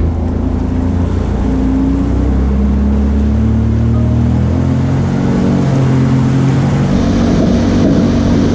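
A jet ski's engine runs as the craft moves through floodwater, under background music with held, stepping bass notes. About seven seconds in, the rush of engine and water spray gets louder as the craft speeds up and throws a wake.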